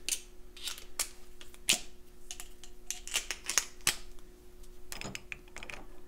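Irregular light clicks and clinks of metal hand tools being handled while a slotted screwdriver is fetched, over a faint steady hum.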